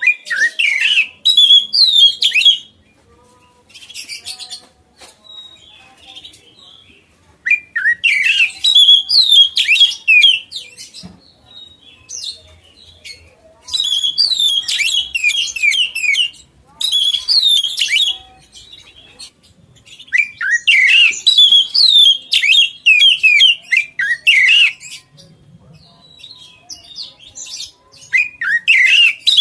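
A songbird singing loud bursts of quick, sweeping chirps and whistles, in phrases a few seconds long with short pauses between.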